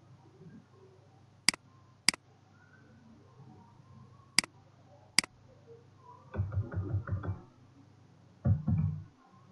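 Four sharp computer mouse clicks in the first half, then two quick runs of keyboard typing near the end.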